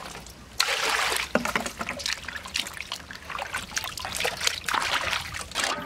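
Water running and splashing into stainless-steel bowls as freshly cleaned eels are rinsed and dropped, dripping, into a pot of water. The splashing comes in uneven surges, with a short lull about half a second in.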